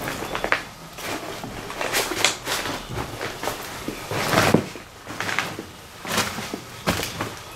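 Irregular footsteps with rustling and crunching over loose paper and debris on a floor.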